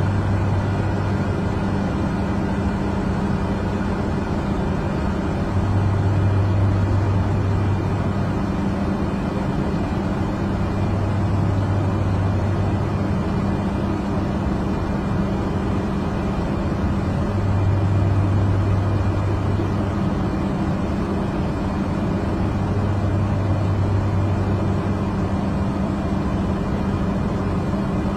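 Steady drone of a small plane's engine heard from inside the cabin, with a low hum that swells and fades every few seconds.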